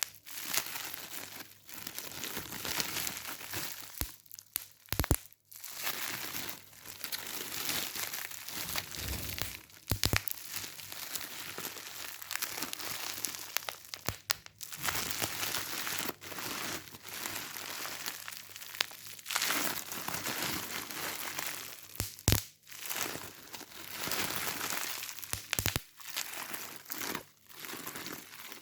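Crinkling and crackling that keeps on, with a few short pauses and several sharp louder cracks.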